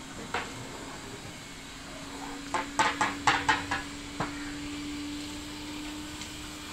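A quick run of about six sharp knocks or clanks in the middle, with a single knock before it and another after, over a steady low hum.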